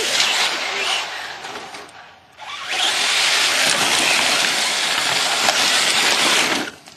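Electric radio-controlled truck driving hard, a loud hissing rush of motor, gear whine and tyres churning dirt. It fades out about two seconds in, then comes back loud as the truck is driven on, and drops away near the end.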